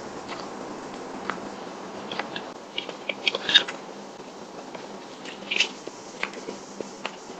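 Wet mouth sounds of eating whipped-cream cake, with scattered smacks and clicks, and a spoon cutting and scraping through the soft cake. A quick cluster of clicks about halfway through is the loudest.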